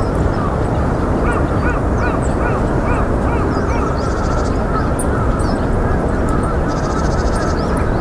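A chorus of many birds calling: short rising-and-falling calls repeating two or three times a second over a steady low background noise, with brief rapid high trills about four seconds in and near the end.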